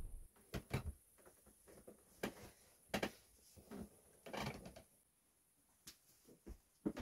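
Sparse soft knocks and rustles, about ten in all, from a person shifting on a sofa, getting up and taking a few footsteps.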